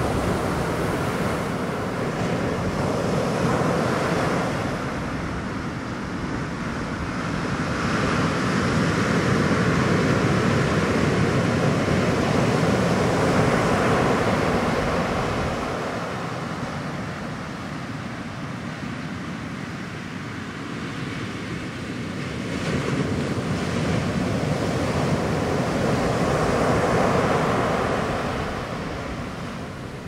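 Ocean surf breaking and washing up the beach, a steady rush that swells and eases in long surges, loudest in the first half and again near the end.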